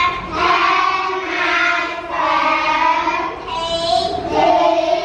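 A class of schoolchildren reciting aloud in unison, chanting in long, drawn-out syllables in a sing-song rhythm.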